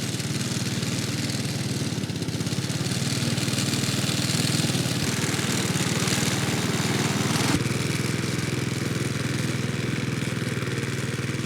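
Honda HRX push lawn mower's single-cylinder four-stroke petrol engine running steadily. About seven and a half seconds in there is a small click and the higher part of the sound drops a little.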